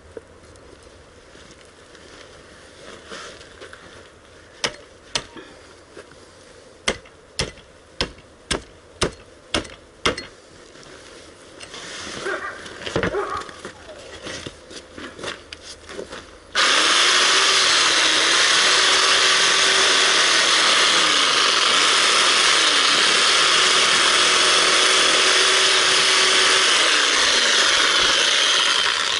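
A hatchet strikes an animal's skull about ten times in quick succession, then a reciprocating saw starts suddenly and runs loudly for about twelve seconds, its motor pitch dipping and recovering as the blade cuts into the skull.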